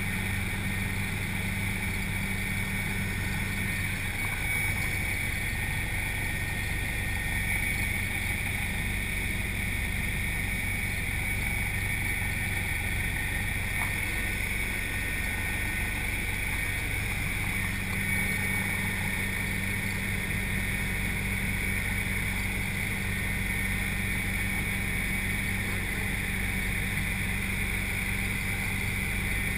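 Helicopter in cruise heard from inside the passenger cabin: a steady drone of rotor and engine, with a low hum and a high whine above it.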